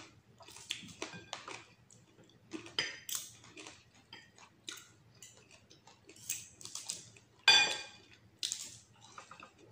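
Metal spoon and fork scraping and clicking against a plate as rice and salmon are scooped up for eating, with one louder ringing clink about seven and a half seconds in.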